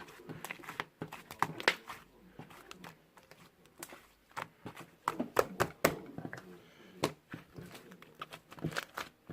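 Irregular clicks, taps and light crinkling, like objects being handled close by in a small room.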